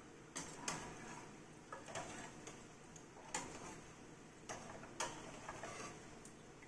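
A steel slotted spoon clinks against the kadhai several times at irregular intervals while fried raw-banana chips are scooped out of the oil. The clicks are sharp and faint.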